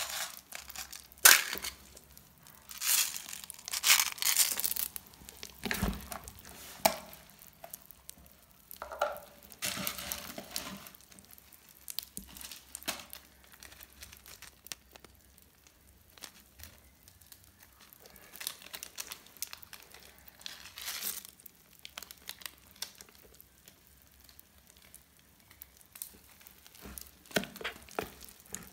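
Crunchy slime with beads mixed in, being squeezed and pressed, crackling in irregular bursts. The crackling is busiest in the first several seconds, then sparser and quieter.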